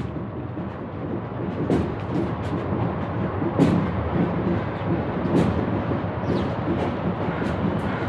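City ambience recording: a dense, steady din with frequent short, sharp clicks and clinks scattered through it.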